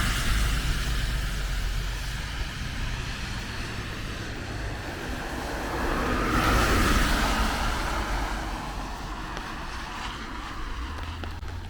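Cars passing on a wet road: tyre hiss on wet asphalt, one fading away over the first couple of seconds and another swelling and fading about six to seven seconds in.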